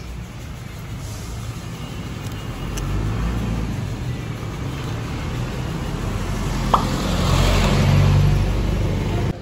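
Road traffic: a steady engine rumble, with a vehicle passing close and loudest about eight seconds in. A short sharp click comes just before the swell.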